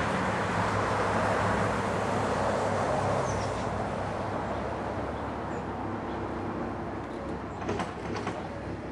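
Engine and traffic noise from a passing motor vehicle, loud at first and fading after about three seconds, with a few sharp clicks near the end.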